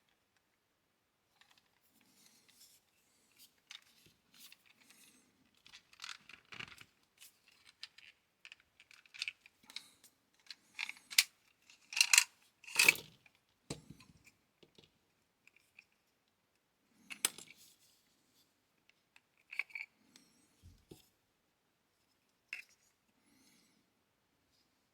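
Hand tool being worked in the hands: scattered plastic and metal clicks and clacks, with the sharpest pair of clacks about halfway through and quieter clicks after.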